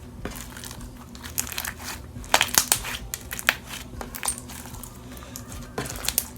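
Fishbowl slime (clear slime packed with wax polymer beads) being squished and kneaded, giving irregular crunching, crackling clicks that come thickest between about two and four seconds in.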